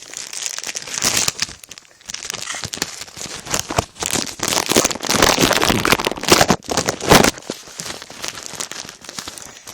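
Plastic and paper packaging crinkling and rustling as it is handled, in irregular bursts that are loudest around the middle.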